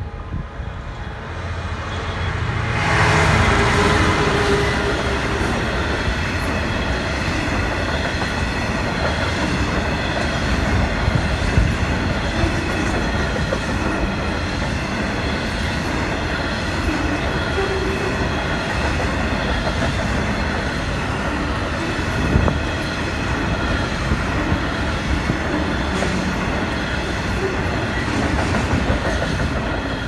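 Class 66 diesel locomotive 66780 hauling a train of hopper wagons past: the locomotive comes through loudly about three seconds in, followed by the steady rumble of the wagons' wheels running over the rails.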